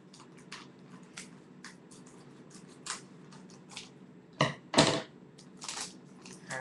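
Crinkling, crackling and small clicks of trading-card packaging being handled and opened, with two louder sharp rips or snaps about four and a half seconds in.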